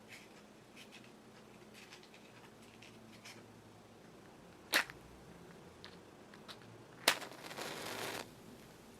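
A match struck twice against the box, a little over two seconds apart; the second strike catches and flares with a hiss for about a second. Light handling ticks come before.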